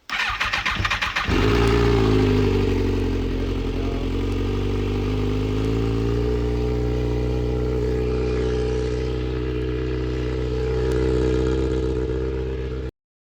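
Kawasaki ZX-6R inline-four sport-bike engine started: the starter cranks for about a second, the engine catches and settles into a steady idle that wavers slightly in pitch, then the sound cuts off abruptly near the end.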